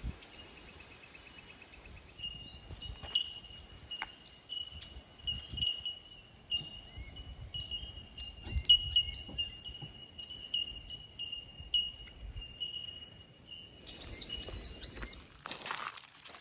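High-pitched animal calling, a steady shrill tone that starts about two seconds in and swells in short pulses until near the end, over scattered clicks and light rustling. A burst of rustling comes near the end.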